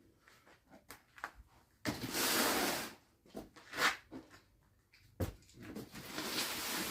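Rustling and sliding of packaging and parts being handled out of a box, in several bursts, with a single sharp knock about five seconds in.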